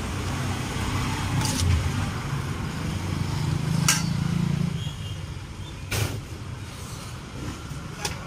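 Roadside traffic: a passing motor vehicle's low engine rumble, strongest in the first half and easing off about five seconds in, with a few short sharp clicks over it.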